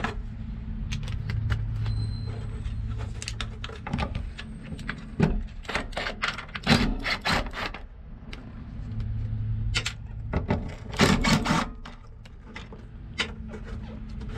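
Socket wrench working the rusty 10 mm nuts off a car's fuel pump access cover: irregular metallic clicks and clinks of the socket on the nuts and studs, with a cluster of sharper clinks about two-thirds of the way through.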